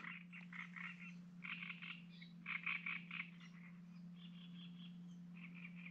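Frogs croaking in several short, faint pulsed trills, with a steady low hum underneath.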